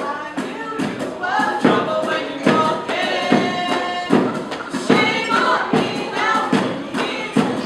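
Several voices singing a melody over a steady percussion beat of about two strikes a second.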